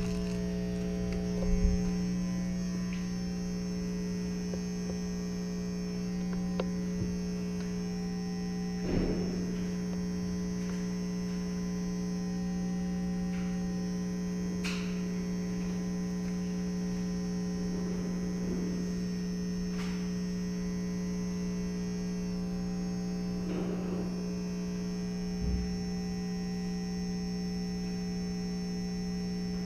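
Steady electrical hum with a row of overtones, unchanging throughout, with a few faint, scattered knocks.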